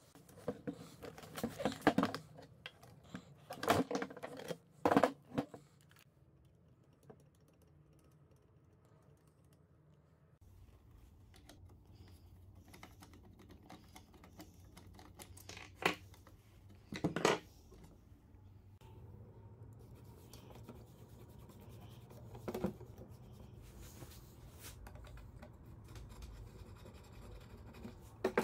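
Hand tools and metal parts clicking, scraping and knocking while an old sewing machine is taken apart, with screwdrivers worked against its metal underside. There is a dense run of clicks and scrapes in the first several seconds, then a quieter stretch with a few single sharp knocks.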